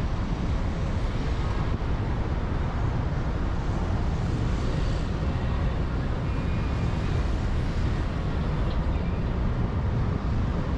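Steady road noise of a car driving along a highway: a low, even rumble of tyres on asphalt and engine, with no sudden events.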